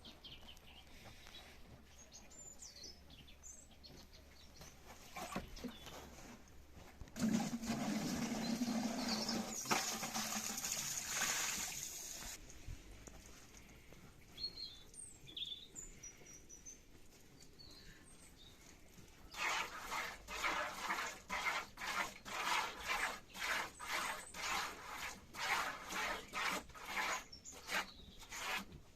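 Small birds chirping now and then. A steady rushing noise lasts about five seconds, and later a rhythmic stroking or scraping sound repeats about twice a second for the last ten seconds.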